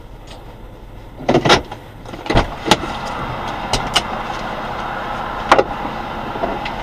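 Sharp knocks and clicks inside a stopped car, in clusters about a second and two seconds in and singly near four and five and a half seconds, over steady car and traffic noise that gets louder about two seconds in.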